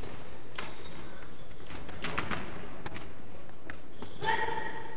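Gloved punches and footwork on a boxing ring's canvas, several dull thuds and knocks echoing in a large hall, with a short shouted call about four seconds in.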